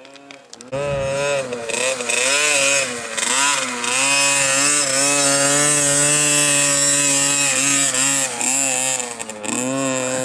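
KTM 50cc Junior dirt bike's small two-stroke engine at high revs, its pitch rising and falling again and again as the throttle is worked. It comes in loud about a second in.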